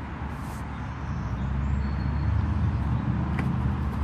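A motor vehicle engine running nearby, a steady low rumble that grows louder about a second in. A light click of plastic grill parts being handled comes about three and a half seconds in.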